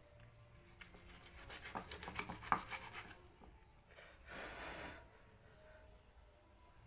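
Kitchen knife slicing through crisp-fried chicken on a wooden cutting board: a quick run of cutting strokes from about one to three seconds in, then a brief scrape a little after four seconds.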